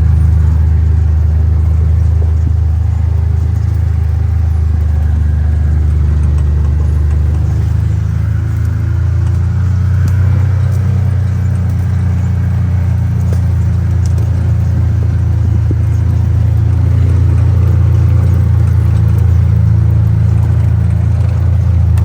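John Deere Gator utility vehicle's engine running steadily as it drives, a low drone that shifts in pitch about seven to eight seconds in.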